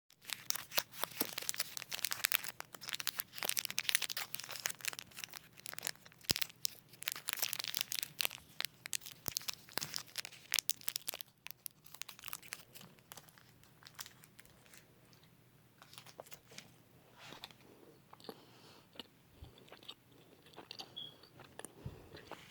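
Snickers bar plastic wrappers crinkled and torn close to the microphone, a dense crackling for about the first eleven seconds. It then gives way to quieter, sparser sounds of chewing.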